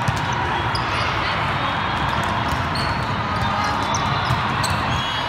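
Busy volleyball tournament hall din: a steady wash of crowd noise from many courts, with scattered sharp smacks of volleyballs being hit and bounced.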